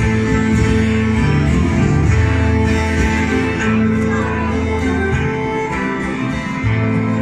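Instrumental passage of a Black Sea folk tune: a twelve-string acoustic guitar strummed together with a plucked kanun and a bowed kemençe, with no singing.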